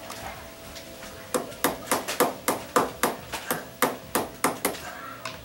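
Screwdriver knocking on the metal mounting bracket of a roller shade: about a dozen sharp taps with a short ring, roughly three a second, starting about a second in and stopping near the end.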